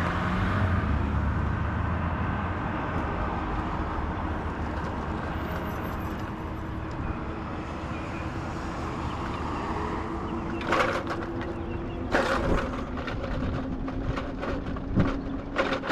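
Street traffic: a passing car's low rumble fading away over the first few seconds. Later, a scatter of sharp clicks and rattles.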